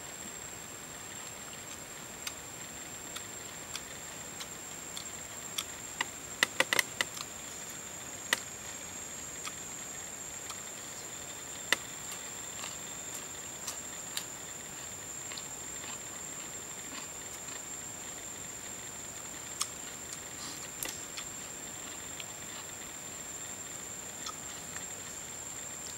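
A steady high-pitched insect drone with scattered sharp clicks and crunches of someone eating. The loudest is a quick cluster of clicks about six to seven seconds in.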